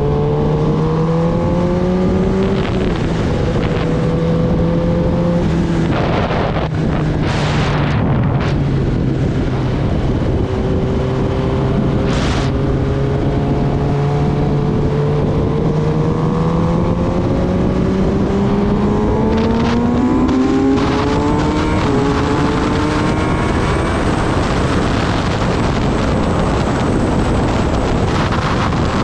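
Kawasaki Ninja ZX-10R inline-four engine running under way, its pitch climbing with the revs and stepping down sharply at gear changes several times. Wind rushes over the microphone throughout, with a few brief louder gusts.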